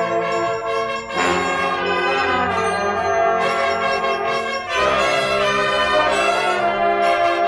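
Drum and bugle corps playing a pop arrangement: the brass line holds full chords over sharp drum strikes that mark each change of chord.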